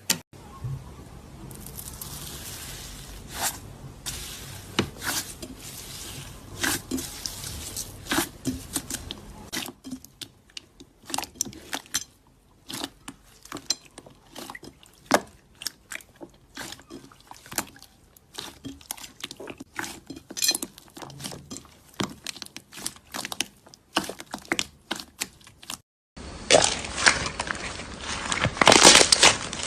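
Slime being squeezed and poked by hand: many short, sticky clicks and pops at an uneven pace. About 26 seconds in it switches to a louder, dense crunching and crackling, like crunchy slime being pressed.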